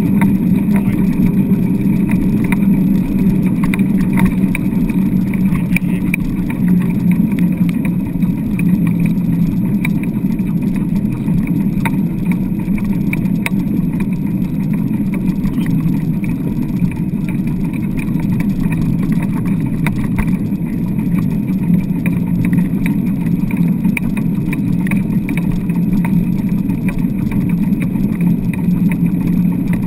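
Steady rumble of a wheeled dog rig rolling over wet beach sand as it is pulled by a team of four sled dogs, with scattered light rattles.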